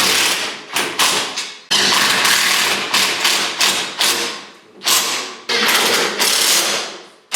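A run of about seven loud, sudden knocks, each dying away over up to a second, irregularly spaced: parts being forced and banged into place while a UTV's roll cage and bumper are fitted.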